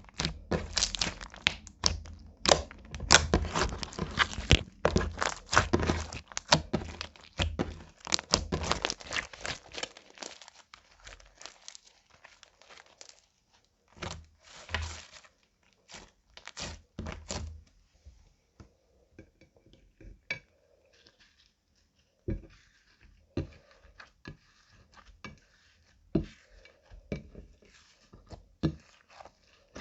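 Slime being squished and folded by hand, giving dense crackling and popping clicks for about the first ten seconds, then sparser pops and clicks.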